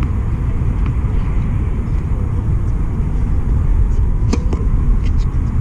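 A tennis racket strikes the ball on a serve about four seconds in, two sharp pops close together, over a steady low rumble.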